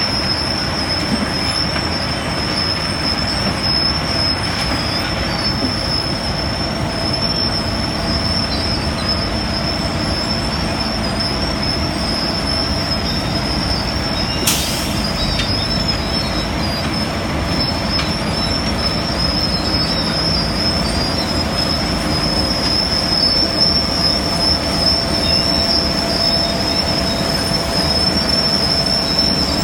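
Construction machinery running: a steady loud rumble with a constant high-pitched whine over it, and one short sharp sound about halfway through.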